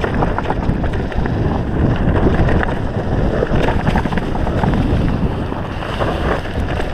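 Mountain bike ridden downhill on a dirt trail: wind rushing on the microphone and tyres rolling over dirt and dry leaves, with frequent small clicks and knocks as the bike bumps along.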